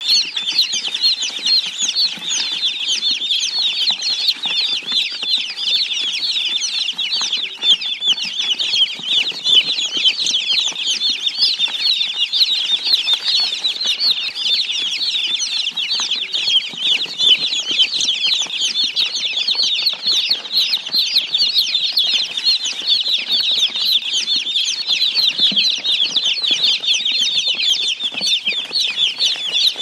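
Many small domestic chicken chicks peeping together: short, high, falling peeps that overlap without a break.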